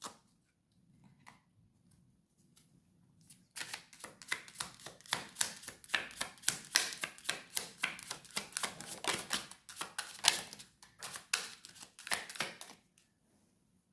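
Tarot cards being shuffled by hand: after a few soft taps, a rapid run of light card clicks starts about three and a half seconds in and stops shortly before the end.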